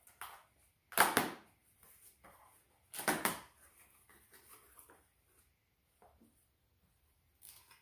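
A small cardboard box being torn open by hand: two loud tearing sounds about two seconds apart, with softer rustling of cardboard and packing paper in between.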